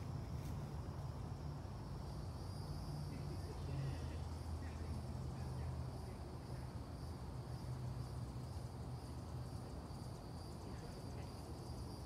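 Outdoor ambience: a steady high-pitched insect drone sets in about two seconds in, over a low steady rumble.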